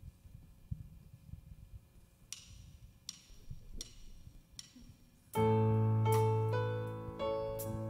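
Four evenly spaced sharp clicks, about three-quarters of a second apart, count in a song. About five seconds in, a stage keyboard enters loudly, playing sustained piano chords that change every half second or so.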